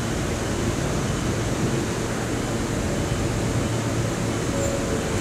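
Steady running noise of an R160 subway train standing at the platform with its doors open: its air-conditioning and on-board equipment humming, with no change in level.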